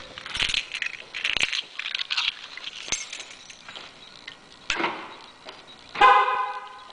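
Keys jangling and clicking for the first few seconds. About six seconds in, a loud pitched sound from the Chevrolet Captiva Sport starts suddenly and fades away.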